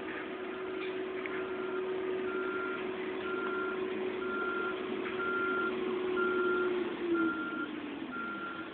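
Backhoe's reversing alarm beeping about once a second, each beep about half a second long, over the steady running of its diesel engine, whose note drops about seven seconds in as the revs come down.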